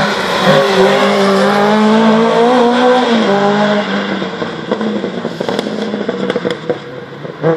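Autocross car's engine running hard, its note climbing slightly for about three seconds, then dropping away into a rougher, lower running sound.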